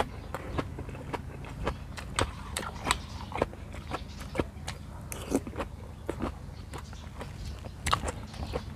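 A person chewing raw beef liver close to the microphone: irregular clicking mouth sounds, a few each second.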